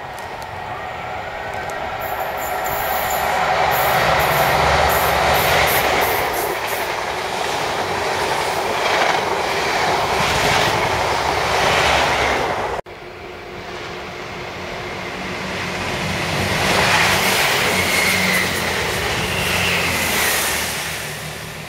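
A First Great Western High Speed Train (InterCity 125) passing through, its diesel power car and coaches with wheels clicking over the rail joints. Then, after a cut about 13 seconds in, a First Great Western Turbo diesel multiple unit runs past, rising and fading with a high whine.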